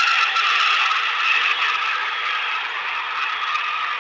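Dassault Falcon 8X business jet's rear-mounted turbofans rushing and whining as the landing jet passes close by, with a steady whine that sinks slightly in pitch while the noise slowly fades.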